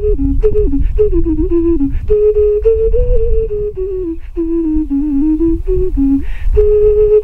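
Ceramic ocarina played: a slow melody of pure, low notes stepping up and down, ending on a long held note, with a low rumble underneath.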